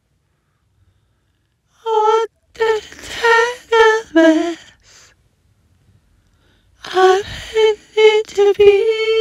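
A woman's high voice singing short phrases with held notes, coming in about two seconds in, pausing for about two seconds in the middle, then starting again.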